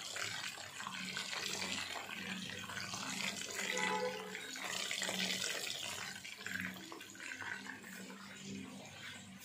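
Oil sizzling around chicken drumsticks shallow-frying in a pan: a continuous bubbling hiss that eases off a little near the end.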